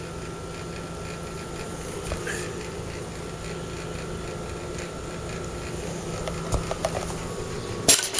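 Steady low mechanical hum, with a few light clicks and a sharp metallic knock near the end as the tools are handled.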